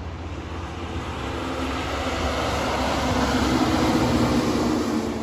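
Coal truck, a tractor-trailer, passing on the road: engine drone and tyre noise growing louder to a peak about four seconds in, then falling away suddenly near the end.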